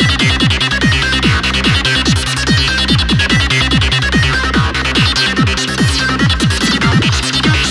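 Unmixed Goa trance loop playing: a kick drum about twice a second under a rolling bass, with a fast, busy FM synth lead from Ableton Live's Operator on top.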